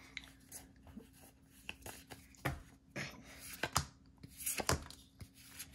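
Pokémon trading cards sliding and rubbing against one another as they are flipped through by hand, with a handful of sharp card snaps from about halfway in, over a faint steady hum.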